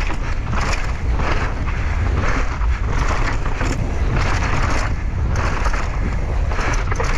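Wind buffeting a GoPro's microphone as a mountain bike is ridden fast, with an irregular crunching rattle of tyres and bike over rough trail.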